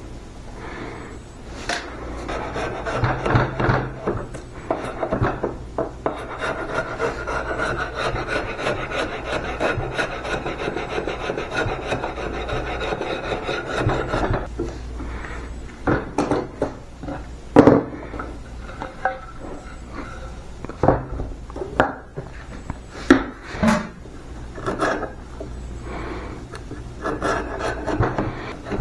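A large chisel scraping and prying bark off the live edge of a walnut slab, the steel rasping against the wood. It scrapes continuously for about twelve seconds, then goes on in shorter separate strokes with sharp knocks and cracks as pieces of bark break away.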